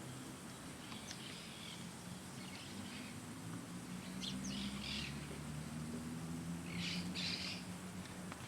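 Small songbirds chirping and twittering in short bursts, four or so clusters of high calls, over a low steady hum.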